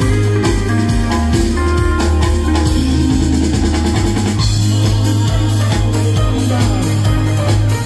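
Live electronic jam band playing through a stage PA: a steady drum-kit beat under a heavy bass line, with guitar and keyboards.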